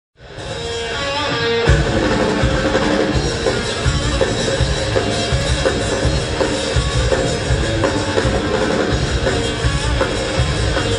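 Live rock band playing, with bass guitar and drum kit, cutting in mid-song; the low end of bass and drums comes in heavier just under two seconds in.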